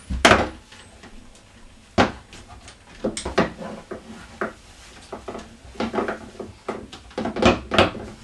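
Wooden rungs of a rope ladder knocking and creaking as people climb down it, in a run of short irregular knocks and scrapes. The loudest is a thump just after the start, with another sharp knock about two seconds in.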